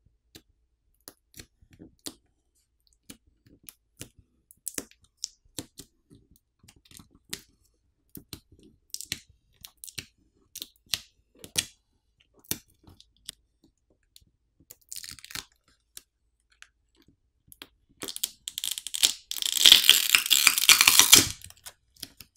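Scattered light clicks and taps of fingers working on a smartphone's battery and frame, then near the end about three seconds of loud crackling as the battery's adhesive pull pouch tears loose and the battery is pried off.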